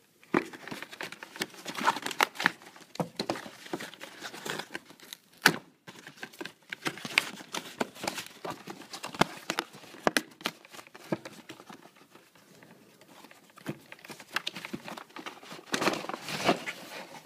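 Cardboard box and paper packaging being opened and handled: irregular rustling and crinkling of card and paper with many small taps and clicks, one sharper knock about five seconds in, and a quieter stretch about twelve seconds in.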